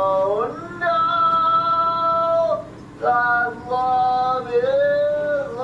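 A man singing drawn-out, high notes without clear words. He slides up into each note and holds it for a second or two, with a short breath gap about three seconds in.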